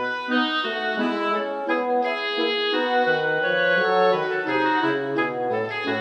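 Instrumental background music: a melody on a reed-like wind instrument over keyboard chords.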